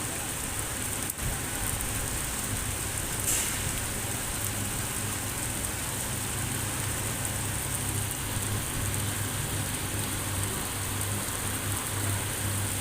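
Steady rain falling, an even hiss, with a low hum underneath and a brief louder hiss about three seconds in.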